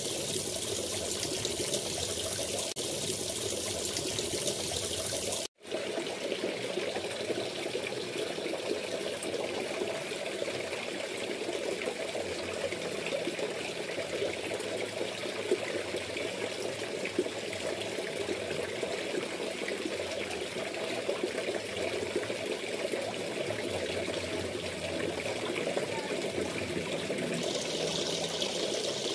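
Water steadily splashing and trickling into a fish pond, churning the surface. The sound drops out for an instant about five and a half seconds in.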